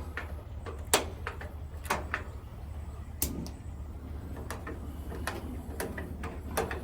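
Propane gas grill being lit after a new hose is fitted: a series of sharp clicks, several loud ones in the first three seconds and fainter ones after, over a steady low rumble.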